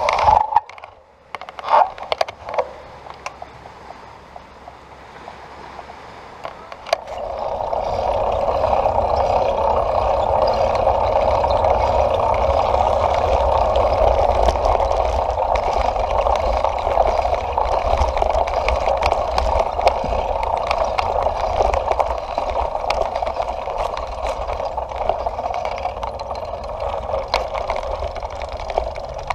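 Bicycle riding on a paved road: a steady rush of tyre and wind noise that sets in about seven seconds in, after a few knocks near the start.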